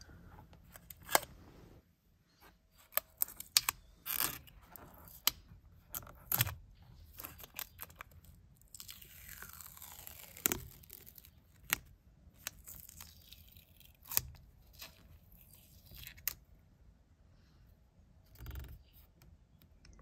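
Clear protective plastic film being peeled off the trim of a Shelby GT500 steering wheel: crackling and tearing of the film with scattered sharp clicks, and a longer peeling rip about nine seconds in.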